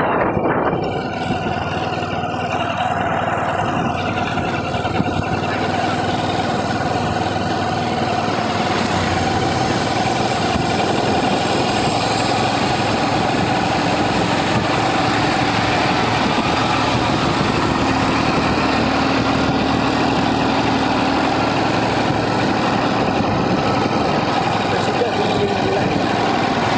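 A motorcycle engine running steadily.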